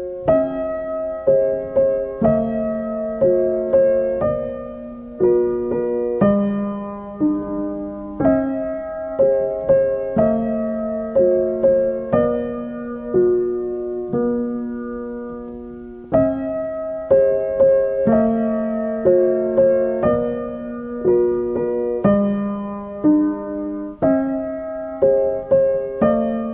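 Background piano music: a gentle melody of struck notes at an even, unhurried pace, each ringing and fading away.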